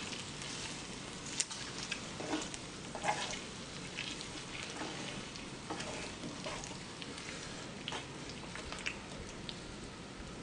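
Pork belly, pork neck and garlic sizzling on a hot griddle, a steady crackle, with scattered clicks and scrapes of chopsticks pushing the meat across the plate.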